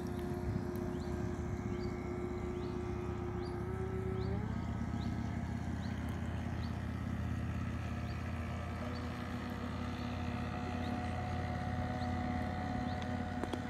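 Radio-controlled model patrol boat under way, its motor giving a steady whine that rises in pitch about four seconds in as it speeds up, over a low steady rumble.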